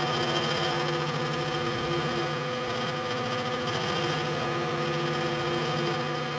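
Milling machine running with a 3/4-inch cutter milling a shallow recess about 30 thousandths deep into magnesium: a steady, even-pitched machine hum.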